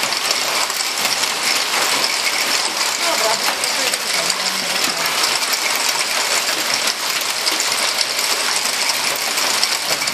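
Hail pelting a corrugated roof in a heavy hailstorm: a loud, dense, unbroken clatter of countless stones striking the sheets.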